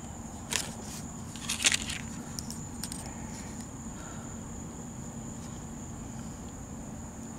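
A few light metallic clicks and clinks of thin steel pinion shims and a dial caliper being handled: one about half a second in and a short cluster a little under two seconds in, over a steady faint background hum.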